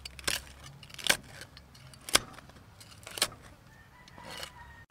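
Chef's knife chopping crispy deep-fried pork on a wooden chopping board: four sharp, crunchy chops about a second apart, then a softer crunch near the end.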